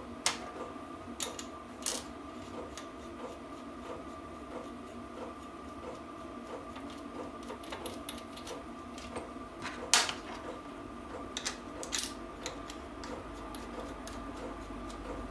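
Steady light clicking, about two to three clicks a second, as a bearing puller is wound down to draw a differential carrier bearing. Several sharp metal clinks come in between: a few near the start, the loudest about ten seconds in, and more soon after.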